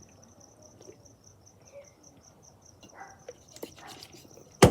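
Insect chirping steadily, a high pulsed trill at about five pulses a second, with a single sharp knock near the end.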